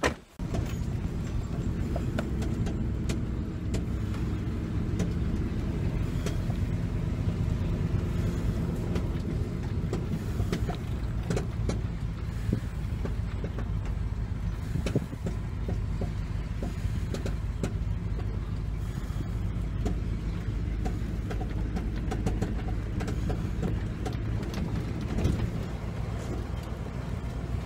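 A vehicle driving, heard from inside the cab: a steady low engine and road hum, with many small rattles and knocks as it goes over a rough farm track.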